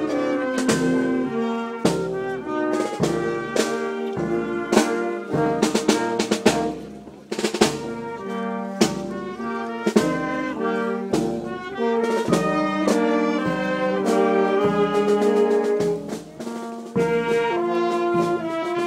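Brass band playing a processional march, trumpets and trombones over drum strokes on a slow, steady beat.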